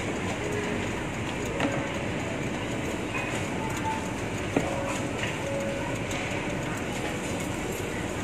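Steady background noise with a few light clicks and knocks, the sharpest about four and a half seconds in.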